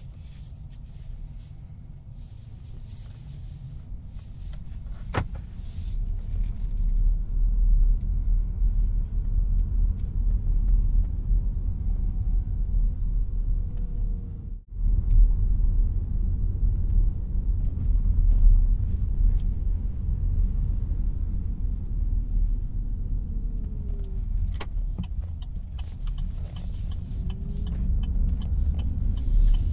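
2018 Opel Ampera-e electric car driving: a steady low road and tyre rumble that grows louder about six seconds in as the car picks up speed, with faint rising and falling electric-motor whine. The sound cuts out briefly near the middle.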